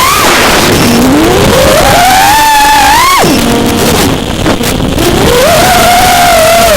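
FPV quadcopter's brushless motors whining, the pitch rising and falling with the throttle. About three seconds in the whine drops sharply as the throttle is chopped, then climbs again a couple of seconds later.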